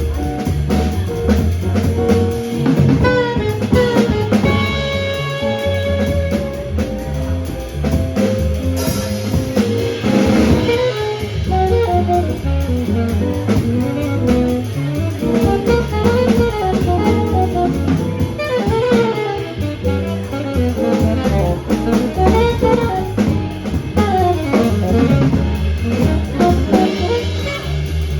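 Jazz quartet playing live: saxophone, piano, bass and drum kit. Long held notes a few seconds in, then from about ten seconds in quick runs of notes rising and falling over a steady bass line and drums.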